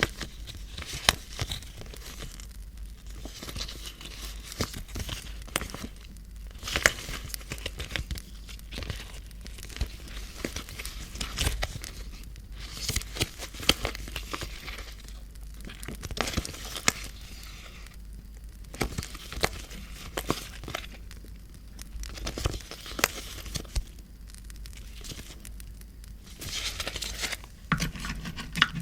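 Paper being handled close up, crinkled and torn, in irregular rustles and sharp strokes, over a steady low hum.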